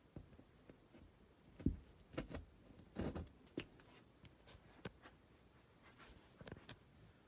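Faint scattered clicks, scrapes and knocks as a threaded drywall anchor is handled and pushed by hand into a pre-drilled hole in drywall, with the loudest knocks clustered in the first half.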